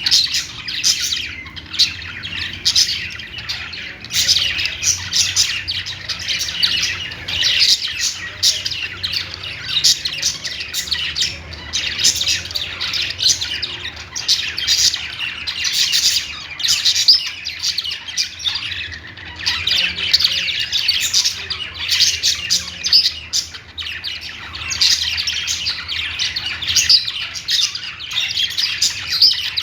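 Budgerigars warbling and chirping in a fast, continuous chatter, with brief harsher squawks mixed in.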